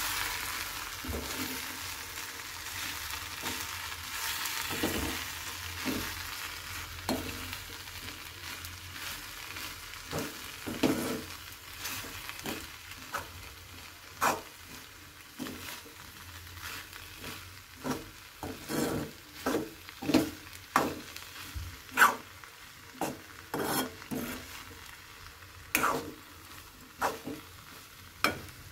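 Metal spoon stirring and scraping eggplant stir-fry in a metal pan to mix in grated coconut, with irregular short scrapes and clinks against the pan that come more often in the second half. A soft frying sizzle under it fades away over the first several seconds.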